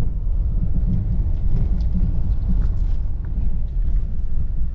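Steady low road rumble of a small Ford car driving on a rough off-road track, with a few faint clicks and rattles.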